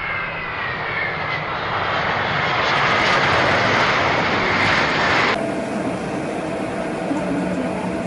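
Jet airliner engines on the apron: a loud whine falling in pitch, the noise swelling, then cutting off abruptly about five seconds in to a quieter steady hum.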